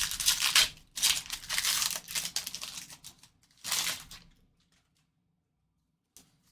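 A trading card pack wrapper being torn open and crinkled by hand, in three bursts over the first four seconds.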